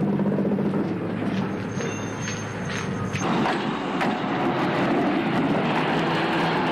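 A slow train of steam locomotives hauled by a diesel locomotive rolling past: a steady rumble of wheels and running gear on the rails, with a thin high squeal from about one and a half to three seconds in.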